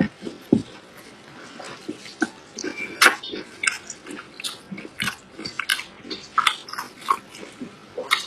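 Close-miked eating: a person biting and chewing food, with irregular short sharp mouth clicks and smacks.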